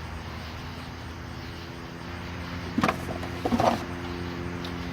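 A few sharp metal clinks in two short clusters about three seconds in, as engine parts and tools are handled during camshaft and rocker-arm installation, over a steady low hum.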